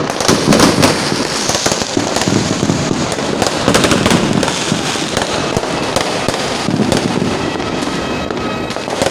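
Aerial fireworks bursting overhead: a dense, continuous run of bangs and crackling pops, many overlapping.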